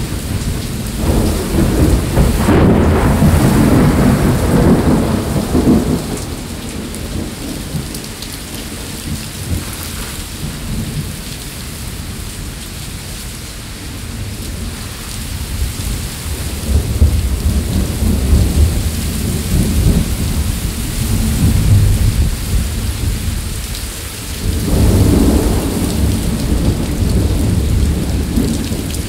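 Thunderstorm of a tropical wave: heavy rain falls steadily while thunder rumbles again and again. A long roll starts about a second in and lasts several seconds, another builds past the middle, and a sudden loud peal breaks a few seconds before the end.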